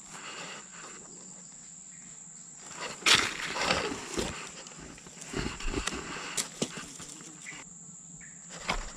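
A steady high-pitched insect drone, with rustling and a few short knocks from close handling about three seconds in and again around five to six seconds.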